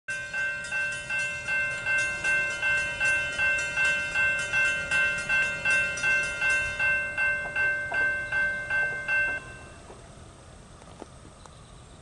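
Railroad grade-crossing warning bell ringing at nearly three strikes a second, signalling an approaching train. It cuts off suddenly about nine seconds in, leaving a faint background.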